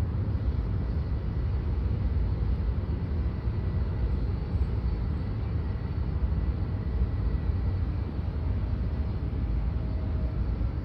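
Aircraft engines running at taxi power, dominated by a UPS Boeing 757 taxiing past: a steady low rumble with a faint thin whine.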